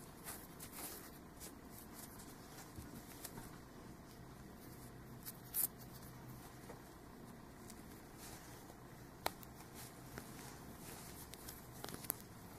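Faint rustling of hands handling a crocheted yarn hat and its black yarn strands, with a few small sharp clicks, the clearest about halfway through and again near the end.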